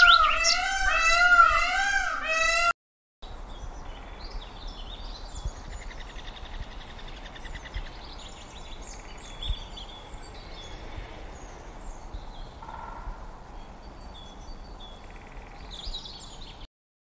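A peacock's loud, wavering calls, repeating about twice a second, cut off abruptly after about two and a half seconds. After a short gap comes a quiet outdoor background with small birds chirping faintly.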